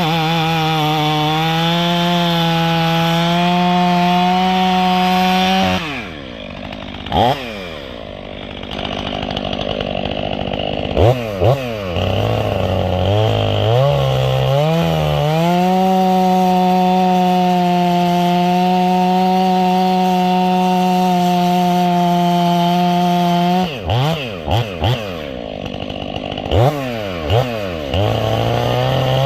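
Stihl 500i chainsaw with its muffler baffle removed and exhaust port opened, running at high speed. It drops to idle twice, with quick throttle blips, and each time climbs back to a steady high-speed whine.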